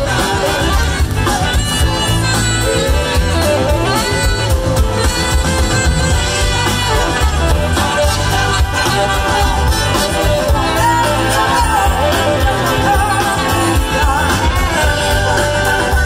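A live rock and soul band with a horn section plays a loud, continuous jam. Drums and bass keep a steady beat while a saxophone plays wavering lead lines over electric guitars.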